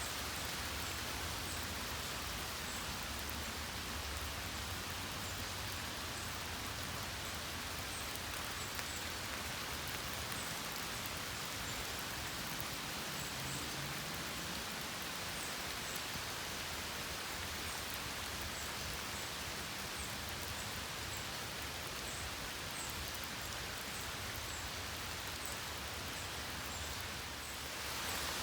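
Steady rain falling, an even hiss with scattered light drop taps. The level dips briefly near the end.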